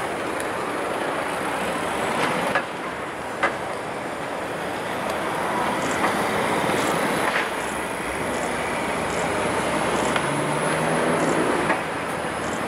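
City street traffic: cars and a double-decker bus passing, a steady rush of engines and tyres with a few sharp clicks, and a low engine drone between about ten and twelve seconds in.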